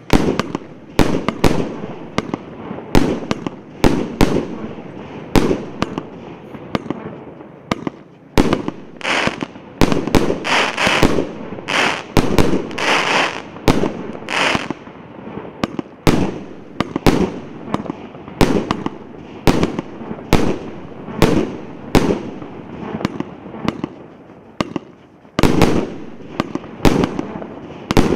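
A 1.25-inch, 49-shot consumer fireworks cake firing in a steady run of shots and aerial bursts, nearly two a second, thickest between about nine and fifteen seconds in.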